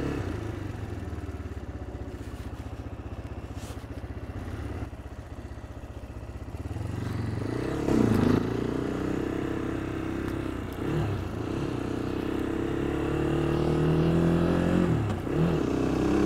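CFMoto motorcycle engine idling steadily, then about seven seconds in pulling away and accelerating. Its pitch climbs and drops back two or three times as it shifts up through the gears.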